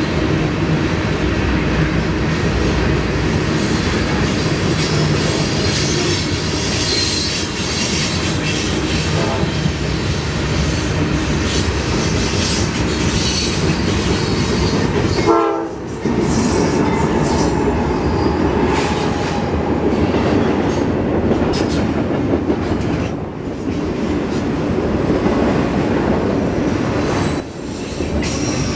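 Norfolk Southern freight trains passing close by: a steady, loud rumble and clatter of steel wheels on rail as a string of tank cars rolls past, then double-stack container cars, with a brief dip in the noise about halfway through.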